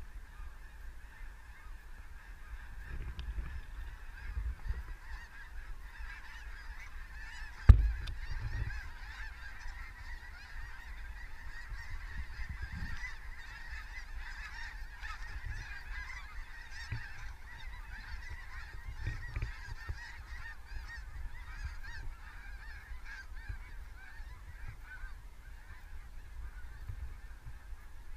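A large flock of snow geese calling overhead: a dense, unbroken chorus of many high honks. A sharp thump about eight seconds in is the loudest sound.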